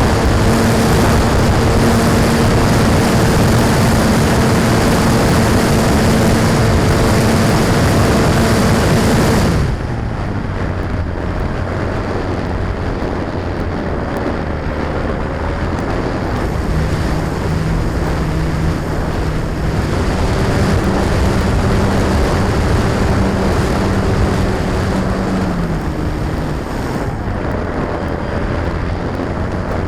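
Radio-controlled model airplane's motor and propeller buzzing at a steady pitch, which drops abruptly about a third of the way in. It then runs lower and quieter, stepping between steady pitches as the throttle changes, over a low rumble.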